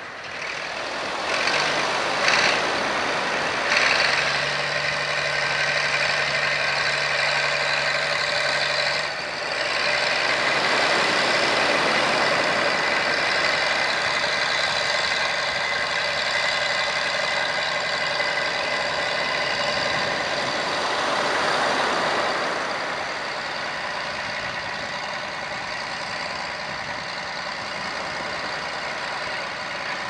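Small crawler bulldozer's diesel engine working as it tows a boat on its trailer up a shingle beach, with a steady high-pitched whine over the engine. There are two knocks in the first four seconds, and the sound eases a little in the last third.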